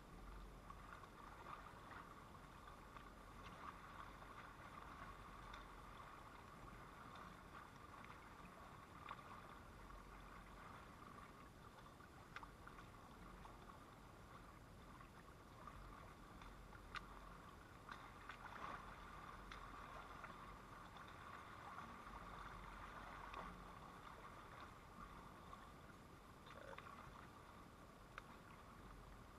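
Near silence: faint lake water lapping and sloshing at a gravel shore as a kokanee salmon is cleaned and rinsed at the edge, with a few faint clicks.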